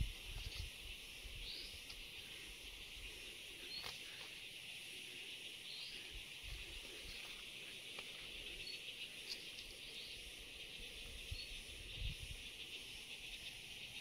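Faint outdoor ambience: a steady high-pitched insect hiss with a few faint, short bird chirps scattered through it, and a low rumble of wind on the microphone now and then, strongest at the start and again about twelve seconds in.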